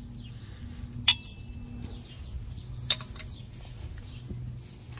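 Two sharp metallic clinks with a short ringing after each, about a second in and again near three seconds, from metal parts and tools handled at the truck's front hub, over a low steady hum.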